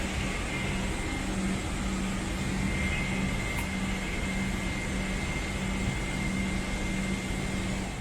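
Steady aircraft cabin drone of a Boeing 777-300, engine and air-conditioning noise, with a low steady hum and a faint high whine.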